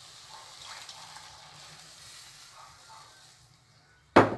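Cooked lentils and their broth poured into a stainless pan of frying bacon, tomato and pepper, with a faint sizzle that fades away. About four seconds in there is a single sharp knock, the loudest sound.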